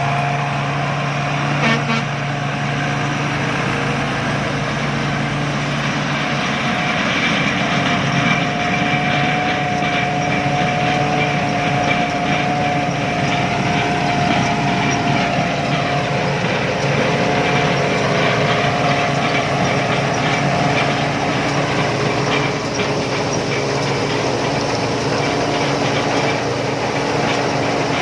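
Rice combine harvester running steadily, a constant mechanical din with a steady whine over it.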